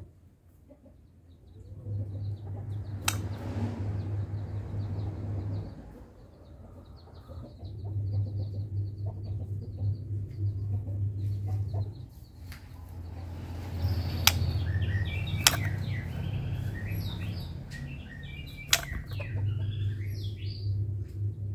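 White-rumped shama singing: a rapid high trill early on, then a run of varied whistled phrases in the second half. A low hum comes and goes several times, and a few sharp clicks are heard.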